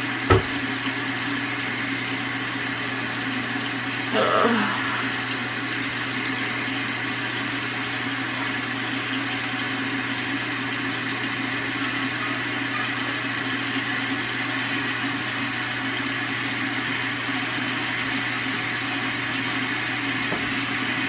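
A steady mechanical hum with a low, constant tone runs throughout. A single sharp knock comes about a third of a second in, and a short, louder sound about four seconds in.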